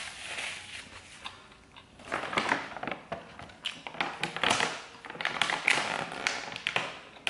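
Crinkling and rustling of a tortilla chip bag being handled and pulled open, a dense crackle from about two seconds in, after softer rustling.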